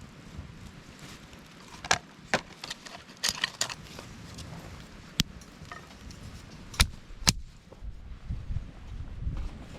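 A series of sharp clicks and knocks of small hard objects: a quick cluster in the middle and a few single ones later, with low rumbling near the end.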